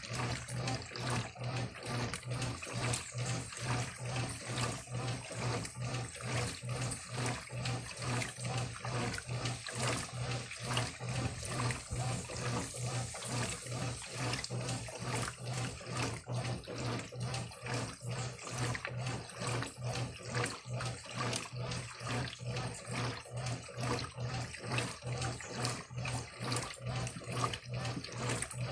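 Brastemp Eletrônica top-loading washing machine agitating its load: water sloshing in rhythmic surges about twice a second over a steady motor hum.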